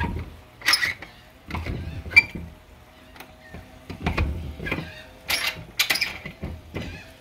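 A sticking door being shoved and worked at, giving a series of scrapes and knocks, with one sharp knock about two seconds in, as it won't open.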